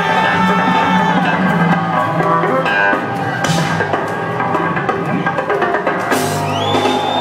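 Rock trio playing live, drum kit and electric guitar over a heavy bass line, recorded from within the audience.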